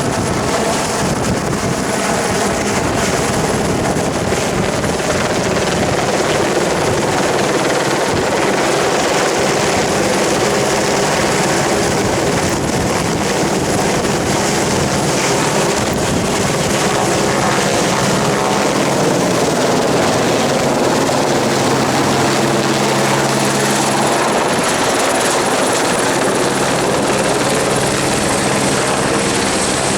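Helicopter running steadily, a loud continuous drone with a thin high whine held throughout.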